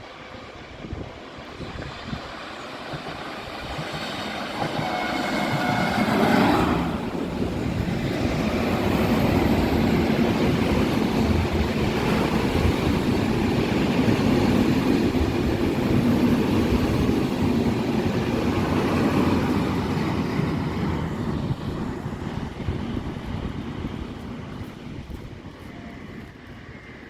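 A train passing beneath on the station tracks: its rumble builds, peaks and fades away. A few steady higher tones sound briefly with the loudest moment about six seconds in.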